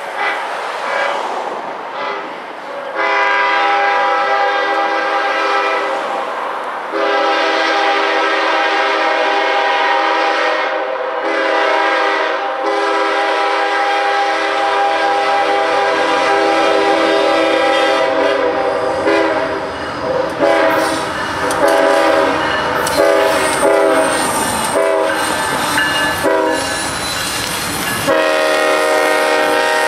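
Diesel locomotive air horn sounding long, loud chords that break off briefly a few times. In the second half the horn comes in shorter blasts over the sharp clatter of freight-car wheels, then holds a steady chord again near the end.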